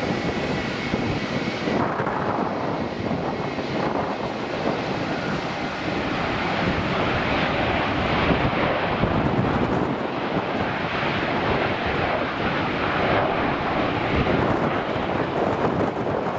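Twin turbofan engines of a Boeing 737 freighter running steadily as it rolls along the runway: a loud, continuous jet noise that stays level.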